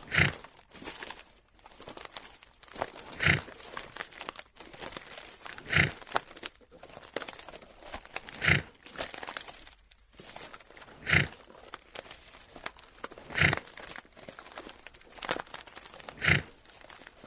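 Giraffe footsteps: slow, heavy crunching steps, a loud crunch about every two and a half seconds with softer crunches between.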